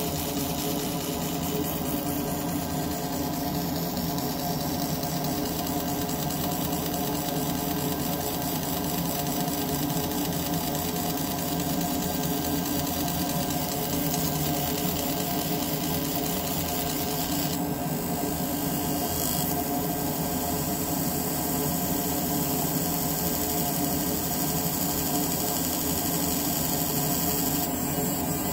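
Fiber laser engraver marking a metal handcuff, making many fast passes over the same shape: a steady, rapid mechanical buzzing that holds unchanged throughout.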